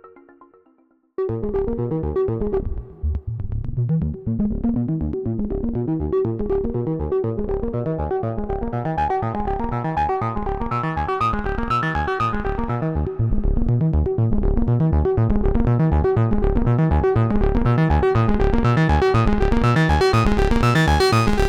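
Moog Subharmonicon analog synthesizer playing a rhythmic sequenced pattern of repeating pulsed bass and mid-range notes, the kind its step sequencers and polyrhythm generators produce. The sequence starts about a second in, after the previous one has died away. Its tone grows steadily brighter, and it gets louder about halfway through.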